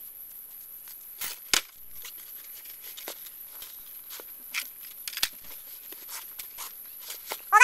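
Bootlaces being pulled through the eyelets and tightened on leather hunting boots: scattered light rustles and clicks over a faint steady high whine. A loud pitched, voice-like sound starts right at the end.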